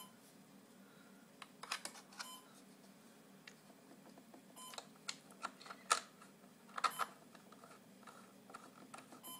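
Scattered light clicks and knocks of hands handling small hardware, the loudest two about six and seven seconds in, over a faint steady hum.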